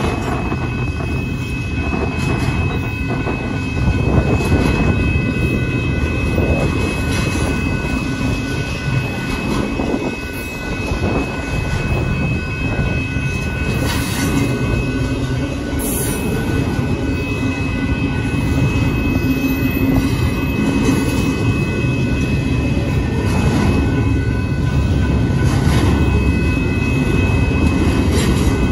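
Double-stack intermodal freight cars rolling past at a grade crossing: a steady loud rumble of wheels on rail with occasional clanks. A continuous high-pitched wheel squeal runs over it.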